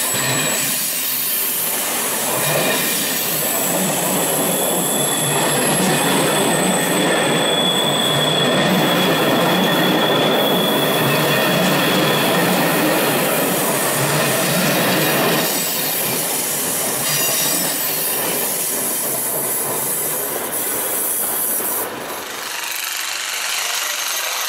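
Czech class 560 (SM 488) electric multiple unit running slowly past along the platform, its wheels clattering with thin, high-pitched squealing. The noise is loudest as the cars go by, eases after about fifteen seconds and drops abruptly near the end.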